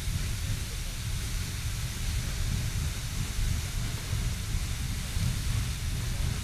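Riverside Geyser erupting: a steady rushing hiss of water and steam with a constant deep rumble underneath.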